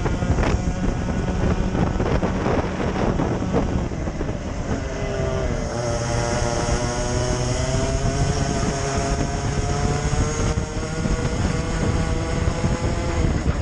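Racing kart engine running hard, heard from the kart itself, with wind rushing over the microphone for the first few seconds. About six seconds in, the engine note comes through clearly, dips briefly and then climbs again.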